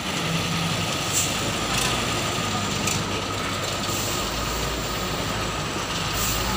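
Isuzu dump truck's diesel engine running steadily as the truck moves slowly over gravel, with a few short bursts of hiss.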